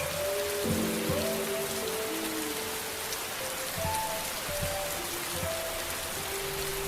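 Steady rain hissing, with soft ambient music of slow, held notes and gentle low thuds underneath.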